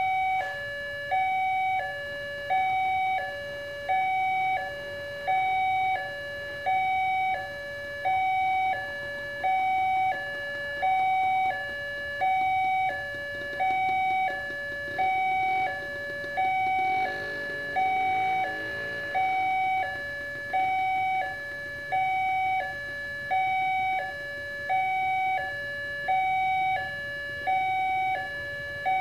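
Railway level-crossing warning alarm from the loudspeaker on the crossing signal post: an electronic two-tone chime alternating high and low, about one high-low cycle a second, warning that a train is coming and the crossing is closed.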